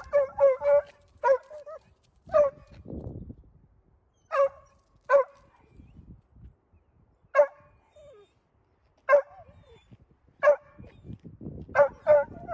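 A dog barking: short, high-pitched barks, a quick run of several at the start and again near the end, with single barks a second or two apart in between.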